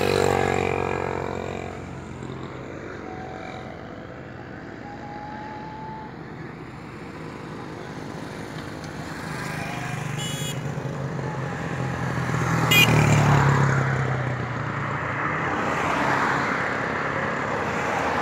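Road traffic going past, motorcycles and cars, a steady engine hum that swells as one vehicle passes loudly about two-thirds of the way through, with a sharp click just as it peaks.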